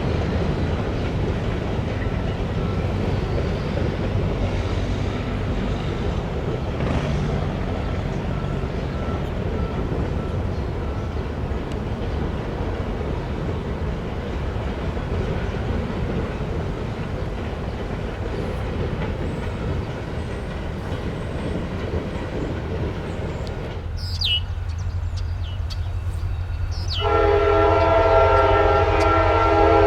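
Freight train rumbling by on the rails. Near the end, a diesel locomotive's air horn blows a loud, steady chord of several notes.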